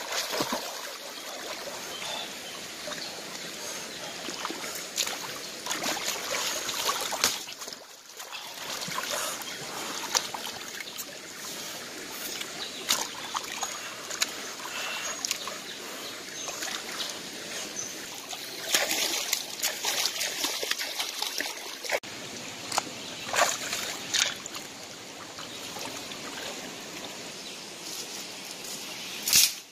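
Shallow rocky stream running and trickling, with frequent splashes and sloshing as a person moves about in the water with his hands and a caught fish. A sharp loud splash or knock comes just before the end.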